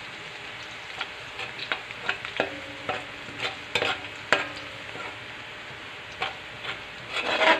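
Minced garlic sizzling in hot oil in a steel wok while a metal spatula stirs it, scraping and tapping against the pan many times, some taps leaving a brief metallic ring. A louder flurry of scrapes comes near the end.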